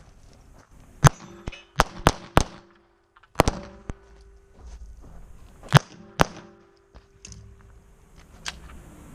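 A string of pistol shots from a Walther PPQ at irregular intervals, about seven loud ones with a few fainter cracks between. Steel targets ring with a sustained metallic tone after several of the hits.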